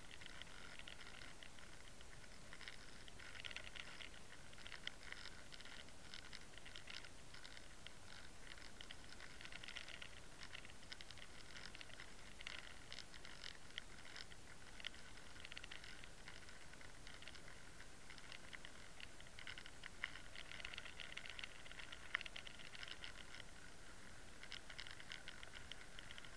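Faint, irregular crackling and patter with occasional sharper ticks, heard underwater through the housing of a camera on the fishing line as a swimbait is pulled through the water.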